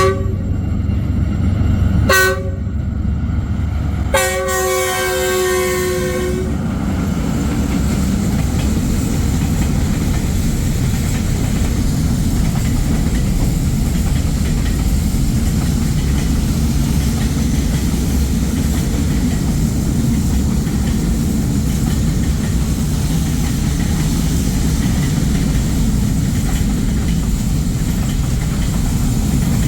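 D19Er diesel locomotive sounding its horn: two short toots, then a longer blast of about two seconds. After that comes the steady low rumble of the locomotive and freight wagons rolling over the track.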